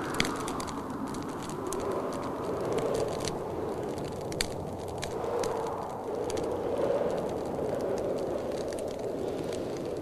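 Wood fire crackling with scattered sharp pops, over a steady rush of blizzard wind that swells and eases every few seconds.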